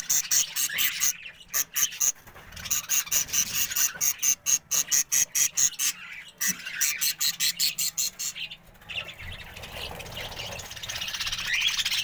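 Budgerigars calling in rapid runs of short, sharp, high chirps, several a second, breaking off and starting again, turning into a denser continuous chatter over the last few seconds.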